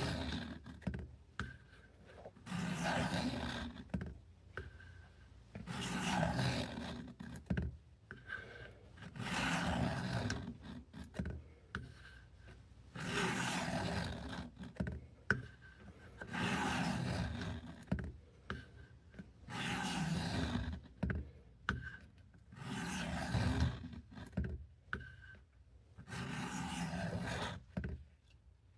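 Knife blade drawn in slow, even strokes along the coarse abrasive of a Work Sharp guided sharpener, each rasping pass lasting about a second and a half and coming about every three and a half seconds, with small clicks in between.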